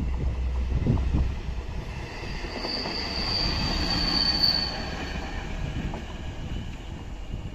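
Railway inspection car ER-871 running past on the adjacent track, its wheels rumbling on the rails. A thin high-pitched squeal rises from about two seconds in, peaks as the car goes by, then fades as it moves away.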